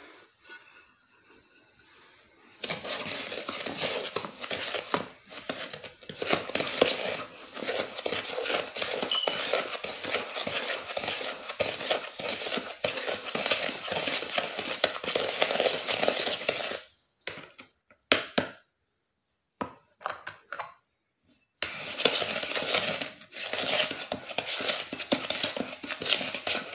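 A spoon stirring a gritty mix of sugar and coconut oil in a bowl: a dense crunchy scraping with clinks of the utensil against the bowl. It stops at about 17 seconds, gives a few short scrapes, and resumes at about 22 seconds.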